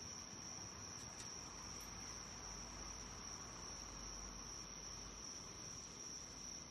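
Crickets trilling in a steady, unbroken high-pitched drone, faint.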